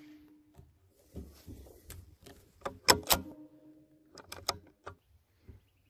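Tail of a .22LR rifle shot fading out, then a string of sharp metallic clicks and clacks as the bolt of the CZ 452 bolt-action rifle is worked to reload, the loudest clacks about three seconds in.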